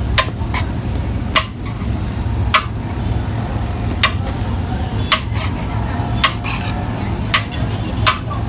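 A metal serving utensil knocking against a pot or tray, sharp clinks about once a second over a steady low hum of background noise.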